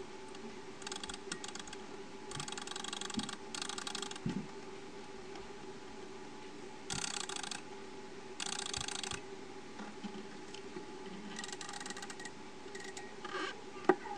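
Brass movement of a vintage West German Gruber mechanical alarm clock being wound by its key: about seven short bursts of fast ratchet clicking. One sharp, louder click comes near the end.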